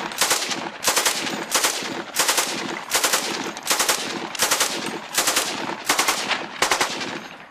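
Stoner 86 (ARES LMG-1) belt-fed 5.56 mm light machine gun firing one long continuous burst of full-auto fire, about seven seconds long, that stops near the end.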